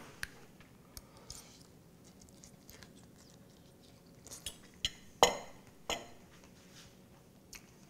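Faint chewing while a forkful of noodles is eaten, with a few sharp clicks of a metal fork against a ceramic plate between about four and six seconds in, the loudest just past five seconds.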